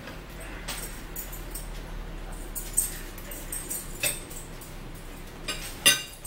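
Close-up eating sounds: chewing and mouth smacks with a few short sharp clicks, the loudest just before the end.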